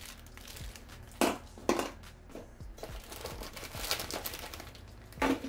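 Small clear plastic bags of camera accessories crinkling as they are handled, with a few sharper crackles about a second in and again near the end.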